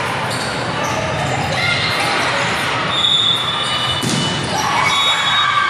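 Indoor volleyball rally echoing in a large gym: the ball being struck, shoes squeaking on the court and players calling out, with a sharp ball hit about four seconds in as an attack meets the block at the net.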